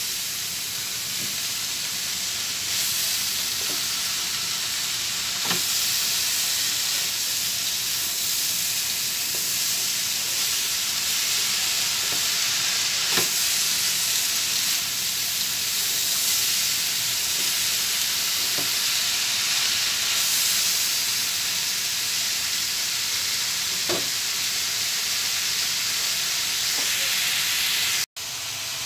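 Green beans sizzling steadily as they sauté in a metal wok, stirred with a spatula that scrapes and now and then knocks against the pan. The sound drops out for a moment near the end.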